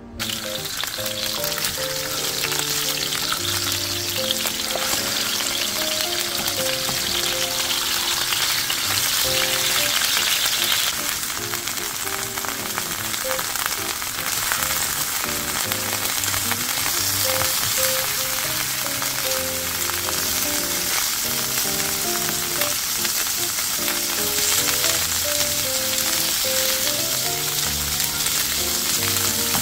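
Food frying in hot oil in a pan, a steady loud sizzle that starts and stops abruptly, with light stirring.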